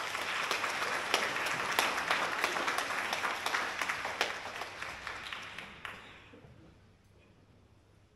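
Concert-hall audience applauding, many hands clapping at once, dying away about six seconds in.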